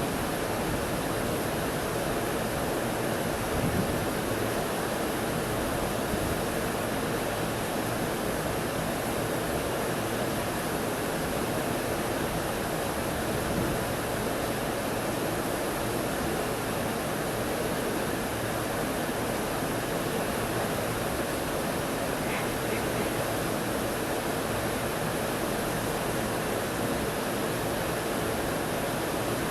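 Steady rushing of river water, an even roar that does not change.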